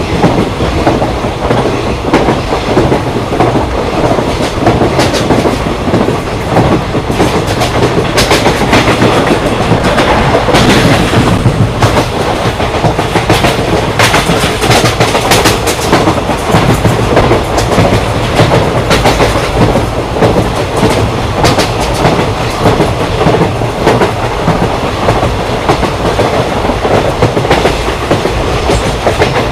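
Indian Railways ICF passenger coach running at speed: steady rumble of the wheels on the track, with a clickety-clack of wheels passing over rail joints. The clacks come thick and fast through the middle of the stretch.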